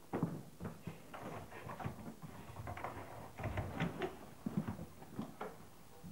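Irregular knocks, bumps and rustling of people moving in a narrow hallway, with bags and a door being handled.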